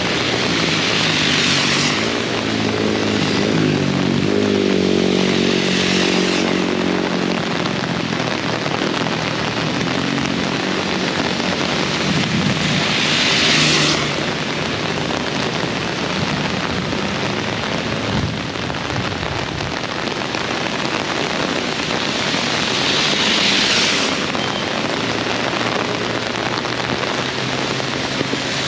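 Heavy rain pouring steadily, its hiss swelling several times. A motor vehicle passes in the first several seconds, its engine shifting in pitch.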